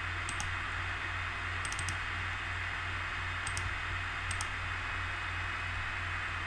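Faint computer mouse clicks, a few single clicks and quick double clicks, over a steady microphone hiss and low hum.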